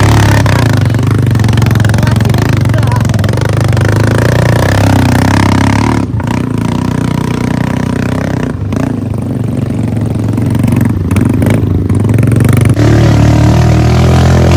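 Motorcycle engine running under load as it climbs a rough dirt track. Its note dips briefly several times and then picks up again.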